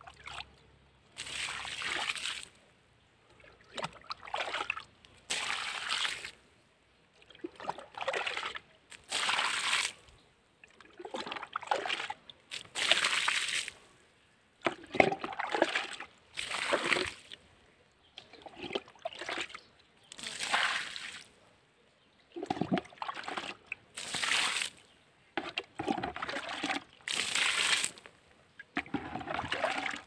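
Water splashing onto the soil in repeated bursts, about one every two seconds, as seedling beds are watered.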